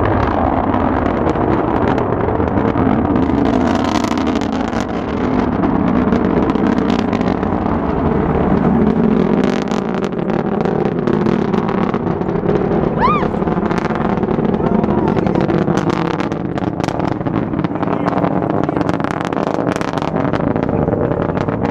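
Antares rocket's first-stage engines heard during ascent: a steady deep rumble with sharp crackling. People's voices are heard too, with a brief rising whoop about 13 seconds in.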